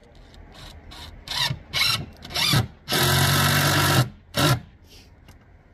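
DeWalt cordless drill driving screws into an OSB plywood floor. There are a few short trigger bursts, then a steady run of about a second, and one more short burst.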